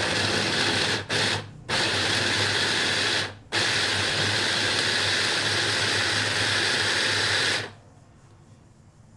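Electric mini food chopper running in pulses as it chops blocks of ricotta into crumbs: the motor cuts out briefly three times in the first few seconds, then runs steadily and stops about three-quarters of the way through.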